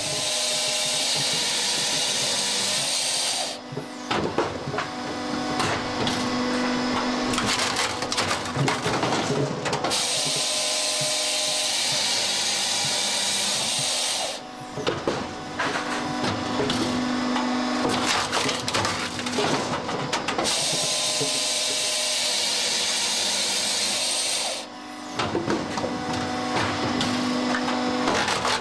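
Posch firewood processor running through its cycle three times. Each time, the saw cuts through the log with a steady high hiss for about four seconds, starting right away, again about ten seconds in and again about twenty seconds in. After each cut, the splitting ram pushes the cut round through the wedge with a run of cracking, splintering wood. Under all of it runs the steady hum of the machine's drive.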